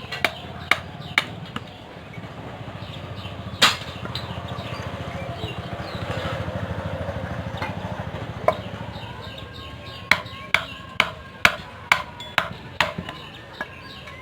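Hand hammer striking a knife blade on an anvil during forging, about two blows a second with a metallic ring. The blows stop after a couple of seconds, with one lone strike, while a low rumble swells and fades, then the hammering resumes about ten seconds in.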